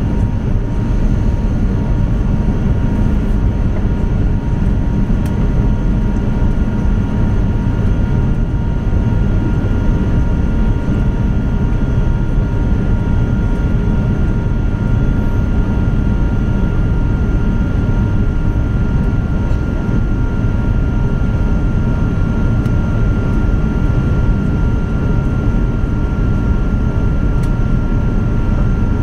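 Cabin noise of an Airbus A350-900 taxiing: a steady low rumble with a thin, even whine above it.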